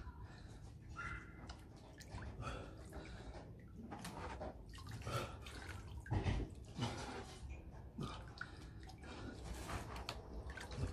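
Water sloshing and dripping in a bowl as a person doing push-ups dips his face into it, in small irregular splashes.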